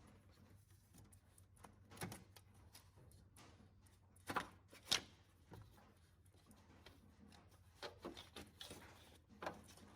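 Quiet handling sounds: light knocks and rubs as the slackened drive belt is worked off the engine's pulleys, the two loudest knocks about four and five seconds in and a run of smaller ones near the end.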